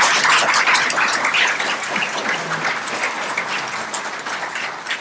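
Audience applauding, the clapping loudest at first and gradually dying down.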